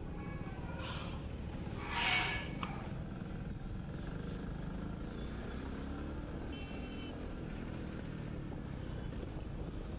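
Motorcycle engine running with steady road and wind noise while riding. About two seconds in there is a brief louder burst with a pitched edge, and faint tones come near seven seconds.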